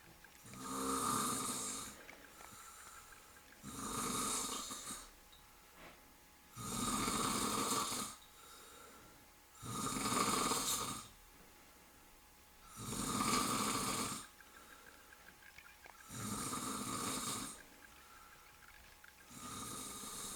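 A middle-aged man snoring heavily after a night of drinking: seven long, rasping snores at a steady rhythm, about one every three seconds.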